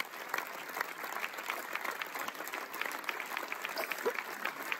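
A large audience applauding steadily, a dense and continuous run of many hands clapping.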